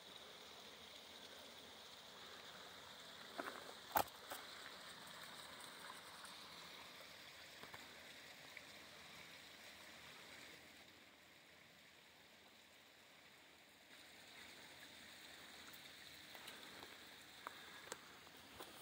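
Near silence: a faint, steady outdoor hiss, with one sharp click about four seconds in.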